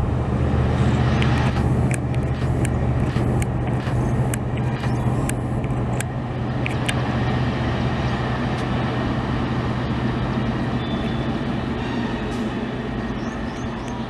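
Passing passenger train running away along the line: wheels clicking over the rail joints about every half second above a steady low hum and rumble. The clicks thin out after about seven seconds and the sound slowly fades.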